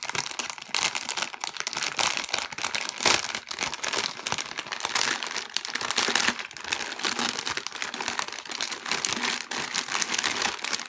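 Packaging crinkling and rustling as it is handled and opened, with irregular sharp crackles throughout.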